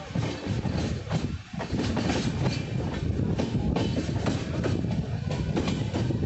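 Indian Railways express passenger train running on the track: a steady low rumble of the coach with irregular clicks and clacks from the wheels, dipping briefly about a second and a half in.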